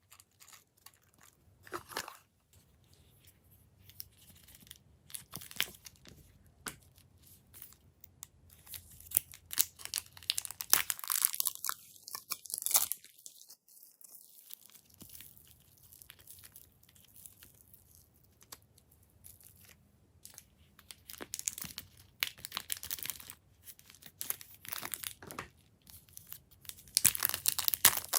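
Glossy slime being worked by hand: a run of sticky crackles and pops as it is pressed, folded and stretched. The crackling is busiest about ten seconds in and again near the end.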